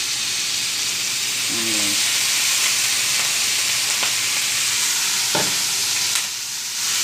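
Sliced bamboo shoots sizzling steadily in hot oil in a frying pan, with vinegar just poured in. A few sharp clicks come in the second half.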